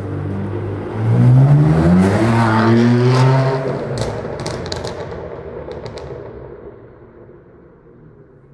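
Supercar engine pulling away hard. A steady engine note, then about a second in the revs climb for a couple of seconds. A few sharp cracks follow, and the sound fades as the car moves away.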